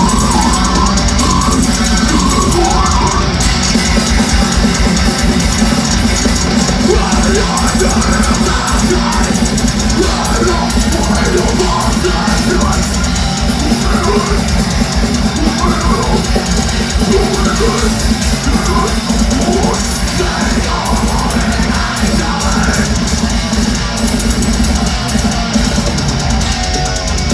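Death metal band playing live through a PA, loud and without pause: rapid drumming, heavily distorted guitars and harsh vocals.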